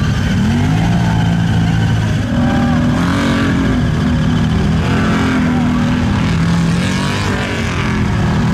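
Engines of off-road side-by-sides and ATVs running close by, their pitch rising and falling as they rev.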